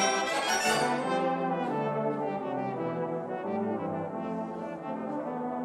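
Brass band playing: loud full chords that drop about a second in to softer, lower sustained chords.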